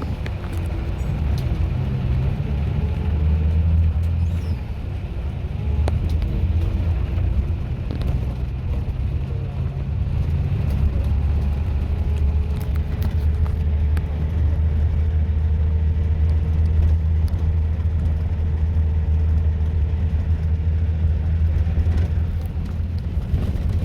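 Inside a moving bus: the engine and road noise make a steady, heavy low rumble, with scattered short rattles and clicks from the bouncing cabin. The rumble eases briefly about five seconds in, then picks up again.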